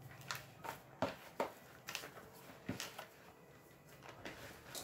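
Hands kneading soft pumpkin and glutinous-rice dough in a plastic bowl: faint, irregular squishes and light knocks, several in a row.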